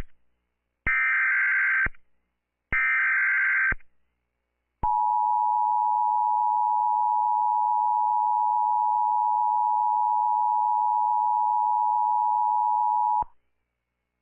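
Emergency Alert System tones: the last two of the three digital header bursts, each about a second of buzzy warbling, then the steady two-tone attention signal held for about eight seconds before it cuts off suddenly.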